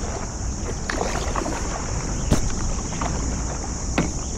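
Stand-up paddle strokes in the water: splashing and dripping, with wind rumbling on the microphone. Two sharp knocks, about two seconds in and near the end.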